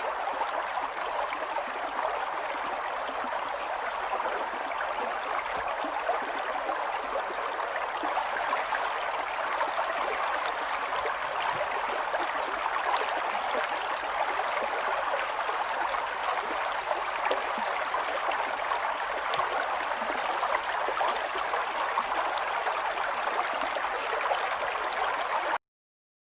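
Flowing water running steadily, like a stream, cutting off suddenly near the end.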